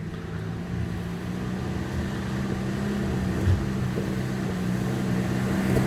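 Off-road vehicle engine running at a steady low speed, growing slowly louder.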